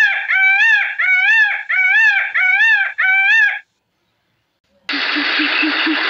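Indian peafowl (peacock) giving a run of about six loud calls in quick succession, each rising then falling in pitch. About five seconds in, a different sound starts: a steady hiss with a fast low pulse.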